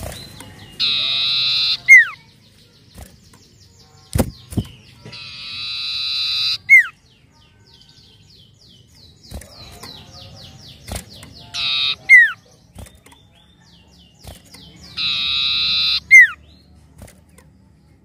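Common iora calling: four harsh, buzzy drawn-out calls of about a second each, every one ending in a sharp falling whistle, which is the loudest part. Between them comes a quick run of short high notes, and there are a couple of brief knocks.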